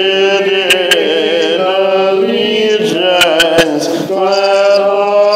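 Voices singing a hymn in long, drawn-out notes.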